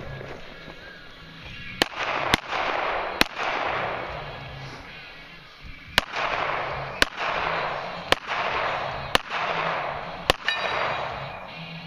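AR-15 carbine fired in aimed single shots: eight sharp cracks over about nine seconds at uneven gaps, each followed by a long rolling echo.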